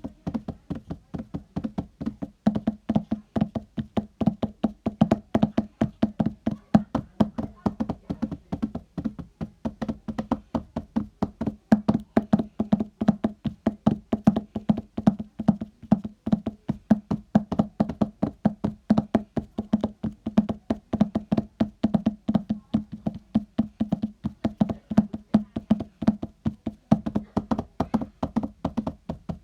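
Homemade horse hoof sound effect: a steady, quick run of hollow knocks, several a second, imitating hooves clopping.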